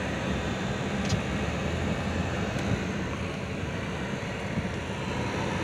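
A car's engine and running gear making a steady low rumble, heard from inside the cabin.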